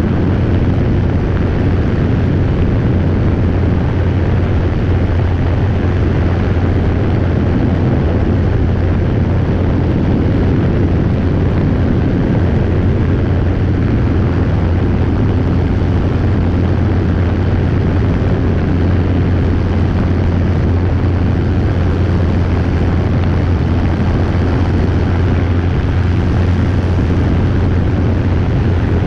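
Robinson R22 helicopter in flight: loud, steady engine and rotor noise with a strong low hum, unchanging throughout.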